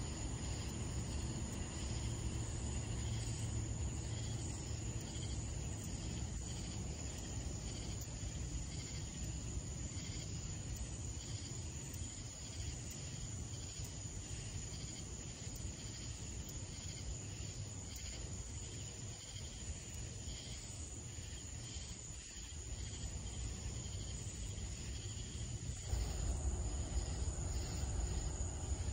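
Night insect chorus of crickets: a steady high trill with evenly repeating pulsed calls over it, and a low rumble underneath that gets louder near the end.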